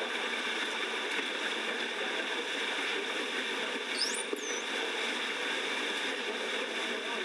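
A wounded dolphin gives one brief high whistle about four seconds in, gliding up and then back down. It is still alive minutes after being spiked. A steady rushing noise runs beneath it.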